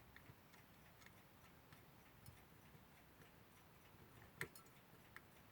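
Near silence with a few faint clicks of small metal parts being handled, the loudest about four and a half seconds in: a screwdriver working a small screw into an alarm clock's movement.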